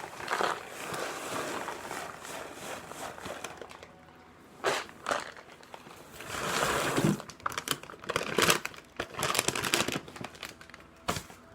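A bag of recycled-paper pellet cat litter crinkling and rustling as it is handled and poured into a plastic tub. The rustling comes in irregular bursts, loudest in the second half.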